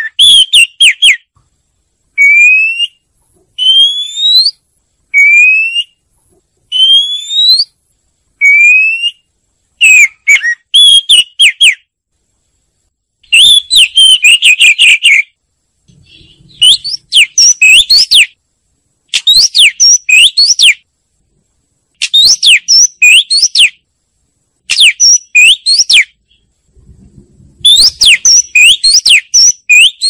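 Oriental magpie-robin (kacer) singing: a series of clear rising whistles, each about a second long, then repeated bursts of rapid, varied whistled notes.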